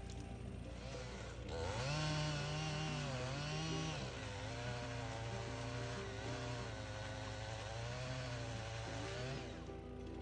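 Small engine revving up and down for about eight seconds, its pitch rising and dipping several times, over a steady low hum; it starts about a second and a half in and stops shortly before the end.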